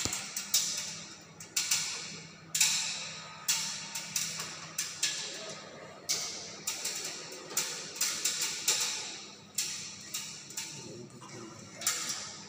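Irregular sharp knocks or clacks, about one every half second to one second, each ringing briefly, over a steady low hum.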